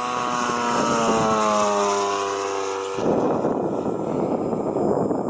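Large petrol-engined radio-controlled warbird model flying past, its engine and propeller tone sliding down in pitch as it passes. About three seconds in, the tone cuts off abruptly and a rough, even rushing noise takes over.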